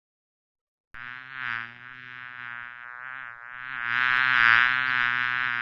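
Insect buzzing, a steady drone that starts about a second in and swells louder near the middle as if coming closer.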